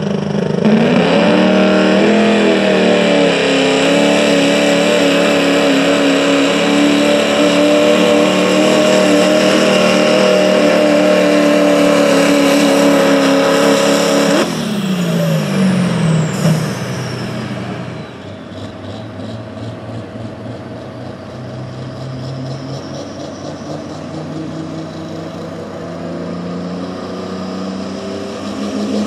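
Diesel pickup truck engine at full throttle pulling a sled, revs climbing in the first couple of seconds and then held high and steady. About halfway through the throttle is cut: the engine note drops away while a high whistle winds down. After that a quieter engine runs at low revs.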